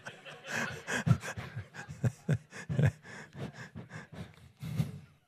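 A man breathing and murmuring close to a microphone in short, quick bursts, with no clear words.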